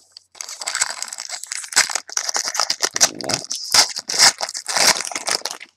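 A foil trading-card pack wrapper crinkling and tearing as it is ripped open by hand. The crackles run thick from about half a second in and stop just before the end.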